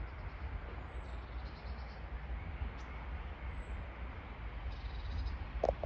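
Steady outdoor riverside background: a low rumble under an even hiss of moving water and distant traffic, with three faint, high, falling chirps a couple of seconds apart and a small knock near the end.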